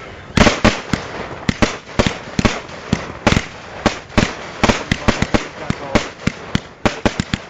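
Fireworks display heard close to the firing point: a rapid, irregular string of sharp bangs, several a second, over a continuous crackling haze.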